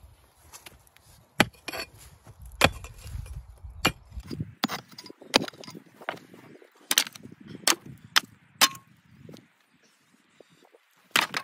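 A 7 lb pickaxe striking and breaking up stony ground, about a dozen sharp hits at uneven intervals. One hit rings briefly, and there is a short pause before a last hit near the end.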